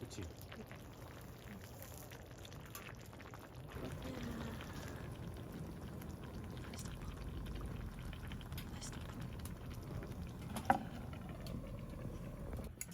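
A pot of food boiling, a steady bubbling and simmering, with one sharp click or clink about two-thirds of the way through.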